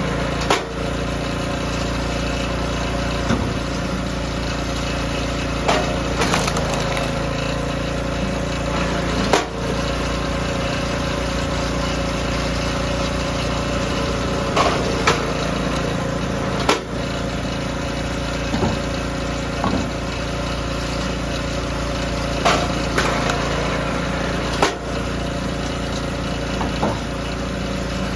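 DR log splitter's small gas engine running steadily while hardwood rounds are split, with a sharp crack or clunk every few seconds as the ram drives through the wood.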